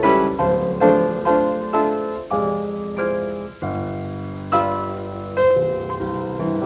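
Piano playing a melody over chords, transferred from a 1947 Electrola 78 rpm shellac record.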